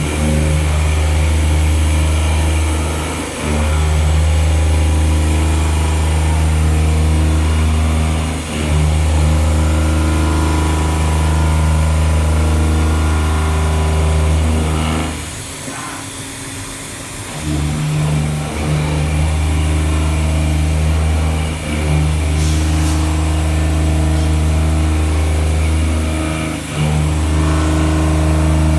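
CNC milling machine cutting a pocket: a steady low drone that dips briefly several times, with a longer lull about halfway through.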